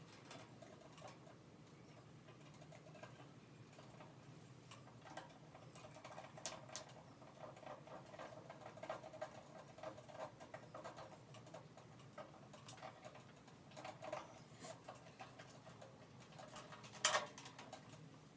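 Hands working the wiring of a fluorescent light fixture: faint small clicks and scratchy rustles of wires being handled, with one sharper click near the end.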